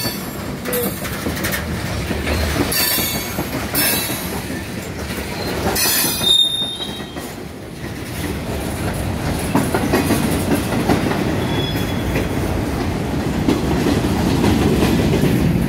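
Freight train cars rolling past close by: a steady rumble and clatter of wheels on the rails, with several short high-pitched screeching bursts in the first seven seconds. The low rumble grows louder from about halfway through.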